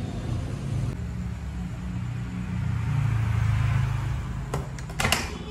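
Low steady mechanical rumble, swelling about three seconds in, with two sharp knocks near the end.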